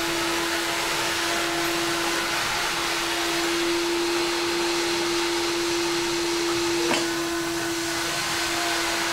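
Walk-behind automatic floor scrubber running steadily across a concrete floor: an even rushing hiss from its suction motor with a steady hum under it, and a single click about seven seconds in.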